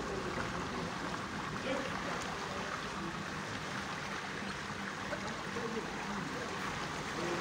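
Floodwater sloshing and swishing steadily around the wheels of a cycle rickshaw as it moves through a flooded street.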